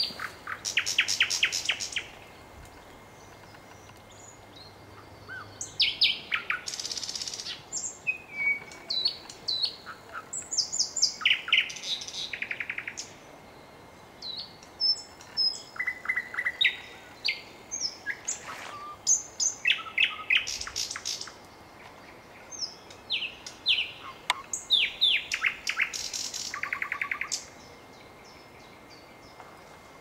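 Nightingale singing in four song phrases, each a few seconds long and separated by short pauses. The phrases are made of rapidly repeated whistled notes and fast rattling trills.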